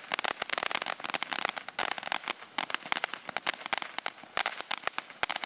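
Ground fountain firework spraying sparks: a rapid, uneven string of small sharp pops over a steady hiss.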